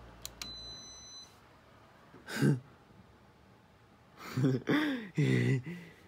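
Two quick clicks and a brief faint high-pitched beep, then a man's wordless voice: a short grunt about two seconds in and two longer hums or sighs, the loudest sounds, near the end.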